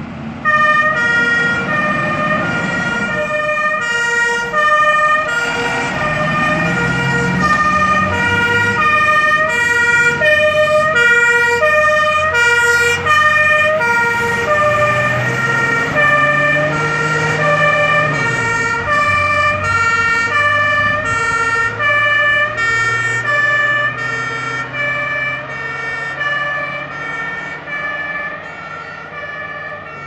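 A fire engine's two-tone siren (German Martinshorn) starts about half a second in and keeps alternating evenly between a high and a low note. Beneath it is the low rumble of the truck's engine, rising in pitch as it pulls away. The siren grows fainter near the end as the truck drives off.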